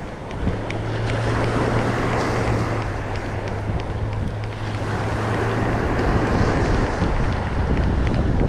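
Wind buffeting the microphone over breaking surf, with a steady low hum and faint ticks from a Penn Battle spinning reel being cranked to reel the line in for a bait check.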